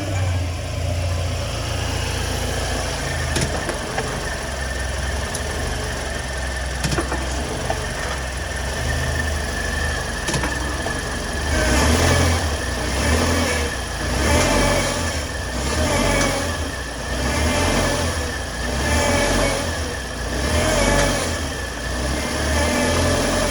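2020 Subaru Outback's engine running, steady at first, then revved in short blips about every second and a half through the second half, with a thin steady whine over it. A grinding noise from the CVT transmission, which the owner hears in Drive and Reverse but not in Neutral, cold or warm.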